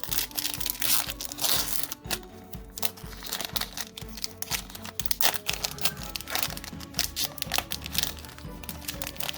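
Foil wrapper of a Pokémon card booster pack crinkling and tearing as it is opened by hand, a dense run of irregular crackles, over background music with a steady beat.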